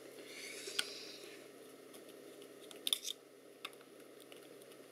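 Faint handling noises from work on small parts and wiring: a short soft scrape or rustle in the first second, then a few small clicks, the loudest cluster about three seconds in.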